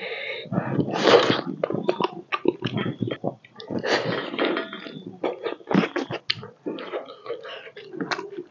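A person chewing and biting pork leg, with irregular wet clicks, smacks and short noisy bursts of mouth sounds.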